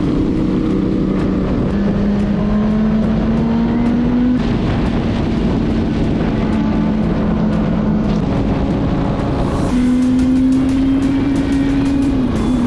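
Sport bike engine running at highway speed, its note climbing slowly as it pulls, over heavy wind rush on the microphone.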